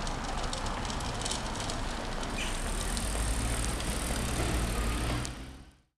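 Street sounds of bicycles riding past on a brick-paved street, with light clicks in the first couple of seconds and a low traffic rumble. The sound fades out near the end.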